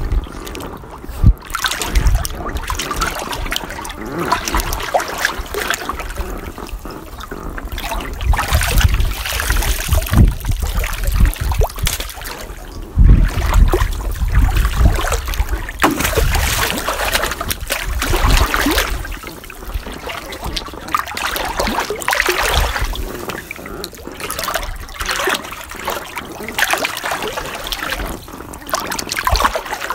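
Swimming pool water being splashed and stirred by a person: irregular splashes and trickling, with several sudden louder slaps of water.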